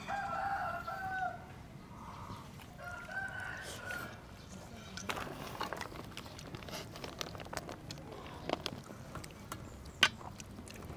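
A rooster crowing in the first second or so, with a few shorter fowl calls around two to four seconds in. After that come faint small clicks from hands mixing rice in a steel bowl, with one sharp clink about ten seconds in.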